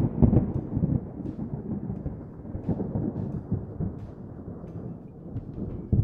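Low rumbling intro sound effect for a logo reveal. It is loud at first and dies away over about a second into a quieter rumble, with another low hit near the end.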